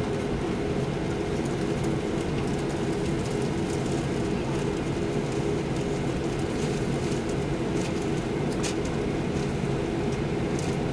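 Inside the cabin of a Boeing 737-800 taxiing: a steady rumble and drone from its CFM56 engines at taxi power and the rolling gear, with a few faint clicks about nine seconds in.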